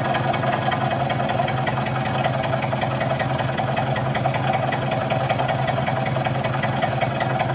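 Vertical milling machine with an end mill cutting the stainless steel skirt of a model boiler's inner wrapper. The machine hums steadily under a fast, even rattle of the cutter.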